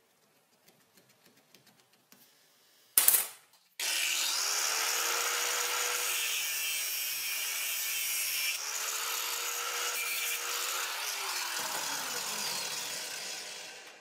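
Electric angle grinder with a cut-off disc cutting through a small metal tube clamped in a vise. It runs for about ten seconds, its motor pitch dipping and recovering as the disc bites, then winds down near the end. A short, louder burst of noise comes about three seconds in, before the cut starts.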